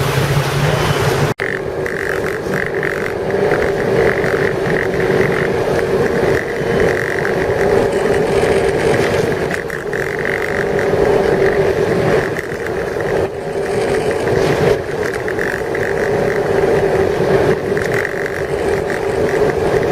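Ski boat engine running steadily at speed, a constant drone mixed with the rush of wind and water.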